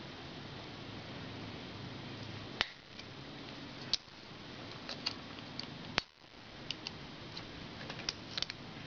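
Sharp metallic clicks and small ticks from a screwdriver working a round wire circlip into its groove in a Harley Evo Sportster piston's gudgeon-pin bore. A few louder snaps stand out about two and a half, four and six seconds in, followed by a quicker run of lighter ticks near the end.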